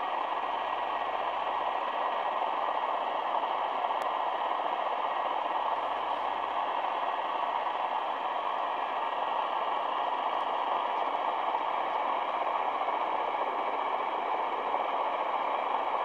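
Sony ICF-SW7600G receiver tuned to 1260 kHz medium wave in upper-sideband (SSB) mode, giving out a steady rushing, noise-like signal with faint steady tones in it. It is an unidentified transmission that the listener takes for a possible utility station.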